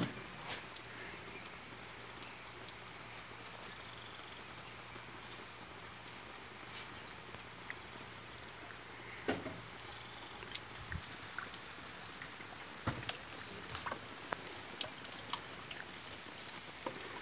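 Steady rain falling, with many scattered drops ticking and pattering close by.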